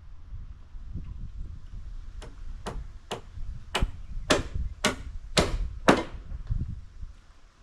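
Hammer driving a nail into deck lumber: eight sharp blows about two a second, growing louder toward the last strokes.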